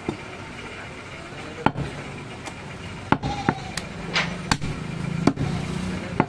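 A heavy butcher's cleaver chopping a mutton leg into pieces on a round wooden chopping block: about seven sharp, uneven chops.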